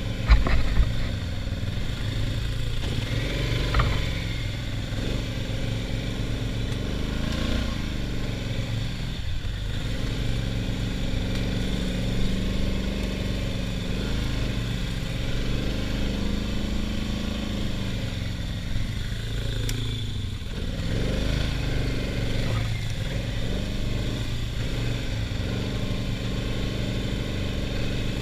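ATV engine running under way, its pitch rising and falling repeatedly as the throttle is opened and eased off. A few sharp knocks sound about half a second in.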